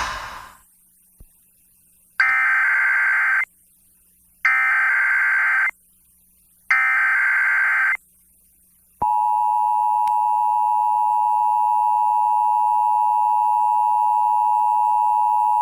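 Emergency Alert System test on broadcast radio. It begins with three short warbling SAME data bursts, each about a second long, then at about 9 seconds the steady two-tone EAS attention signal starts and holds.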